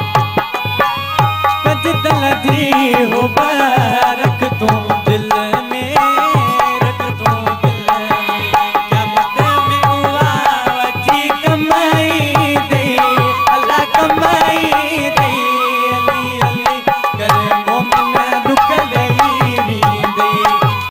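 Live Sindhi devotional song: a man sings a wavering, gliding melody over a steady rhythm of hand strokes on a decorated clay pot drum. The voice comes in about two seconds in, over drumming already under way.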